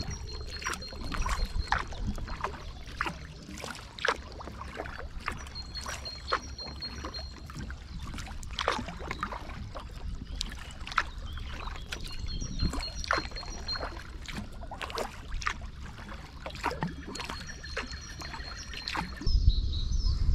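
Kayak paddle strokes: the blades dipping and splashing in calm water, a few small splashes and drips a second. About a second before the end this gives way to a louder low rumble.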